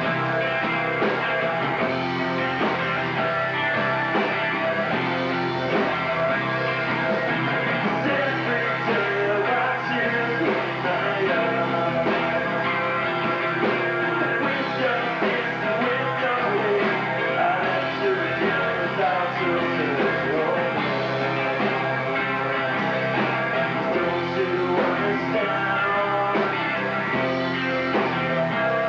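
Three-piece rock band playing live: electric guitar, bass guitar and drum kit together.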